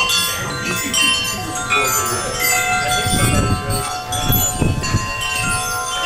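Several metal-tube wind chimes ringing constantly as storm gusts swing them, many overlapping tones struck again and again. A low rumble of wind sits underneath.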